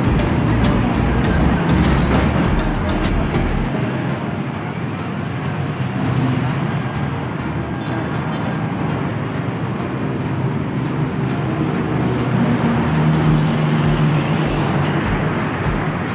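Steady street traffic noise, with vehicle engines passing and an engine hum rising to the fore a little after the middle. A low, gusty rumble, like wind on the microphone, is heard in the first few seconds and again near the end.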